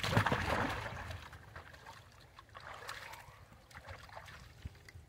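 Macaques splashing in shallow pool water: a loud burst of splashing in the first second as one lunges at another, then lighter splashing and dripping as a monkey wades through the shallows.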